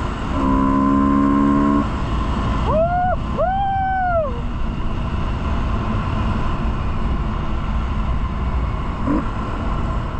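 Steady low rumble of vehicle noise. About half a second in, a steady held tone sounds for about a second and a half, and about three seconds in come two short calls that rise and then fall in pitch.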